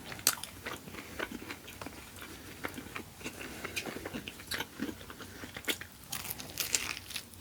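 Close-miked biting and chewing of crispy dry-rubbed chicken wings: irregular crunches and clicks, busiest near the end.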